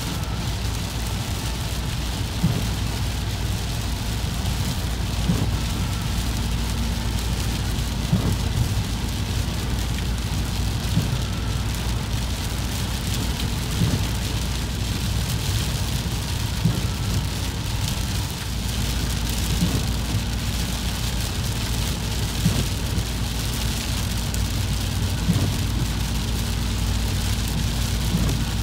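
Moderate to heavy rain, an even hiss over a strong, steady low rumble. A short, sharp tick comes about every three seconds.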